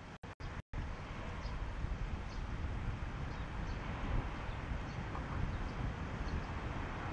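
Steady outdoor noise, a rushing hiss over a low rumble, that cuts out briefly a few times in the first second.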